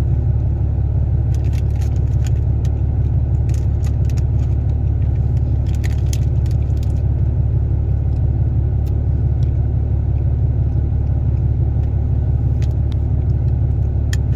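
Mouth chewing a big bite of soft cookie, with scattered small wet clicks in the first half and again near the end, over a loud, steady low rumble.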